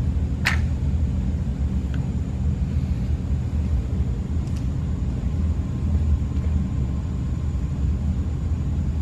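Steady low background rumble, with one sharp click about half a second in and a couple of fainter clicks later.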